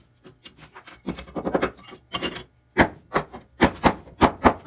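A plaster casting mold is scraped and rubbed by hand, then struck about five times with a metal hand tool to crack it open, a series of sharp knocks in the last two seconds.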